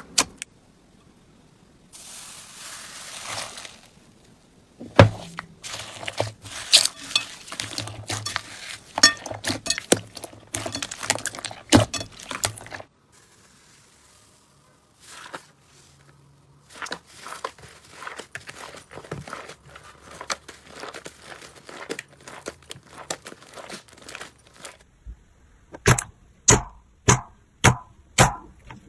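Crunchy slime being squeezed and pressed by hand: dense crackling and clicking in bursts, with a run of about six sharp pops near the end.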